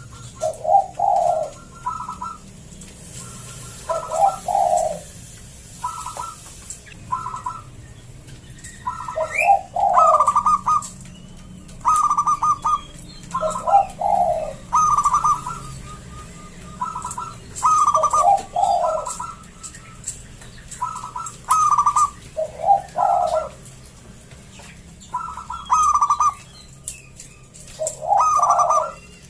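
A zebra dove (perkutut) sings its rhythmic cooing song with a thick, full voice. Coo phrases repeat about every two seconds, each dropping to a lower note and then rising to higher ones. Small birds chirp faintly in the background.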